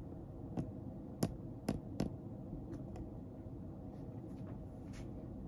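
Light clicks and soft scratchy rustles as a cat treads in a fleece cat bed, its claws catching the fabric: four sharper clicks in the first two seconds, then a few fainter ticks, over a steady low room hum.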